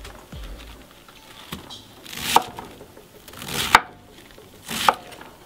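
A large kitchen knife cuts down through a wedge of raw white cabbage onto a wooden chopping board three times, in the second half. Each cut is a crunch through the leaves that ends in a sharp knock of the blade on the board.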